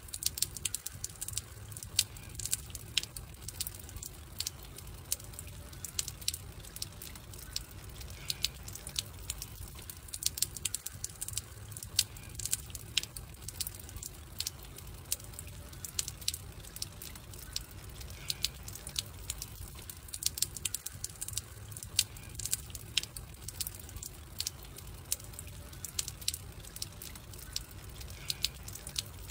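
Wood campfire crackling: irregular sharp pops and snaps over a low, steady rumble.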